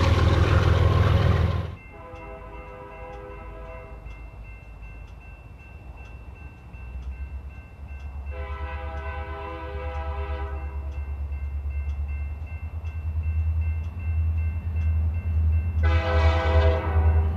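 The loud rumble of a train passing close cuts off suddenly about two seconds in. Then a BNSF GP39-type diesel locomotive approaches and sounds its multi-chime air horn three times: a short blast, a longer one midway and another near the end. Under the horn, the low rumble of its engine grows louder.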